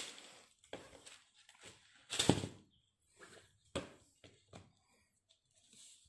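Handling noise: a running shoe and its foam insole being moved about in a cardboard shoe box lined with tissue paper, in irregular rustles and bumps. The loudest bump comes about two seconds in.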